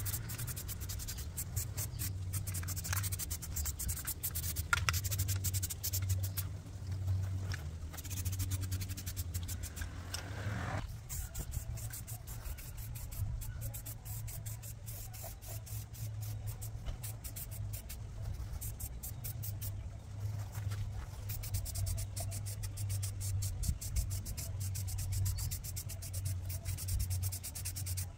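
Scraping and scratching in rapid repeated strokes over a steady low hum.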